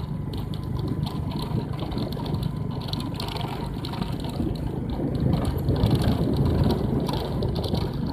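Wind buffeting the microphone while riding a bicycle, with a steady low rumble and quick rattling clicks from the bike.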